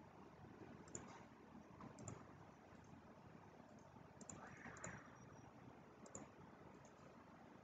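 Near silence with several faint computer mouse clicks, spaced a second or more apart.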